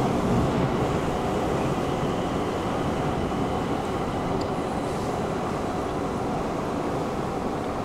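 Steady rumble and hum of metro station ambience in a concourse, easing slightly early on, with a faint high whine in the middle.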